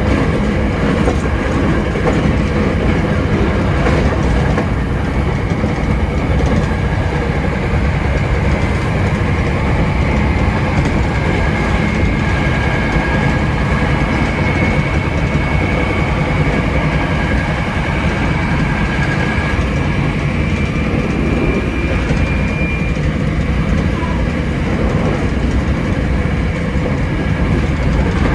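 Hankyu 7300 series electric train running at speed, with a steady rumble of wheels on rail. A faint high whine comes in about ten seconds in and fades out a little past twenty seconds.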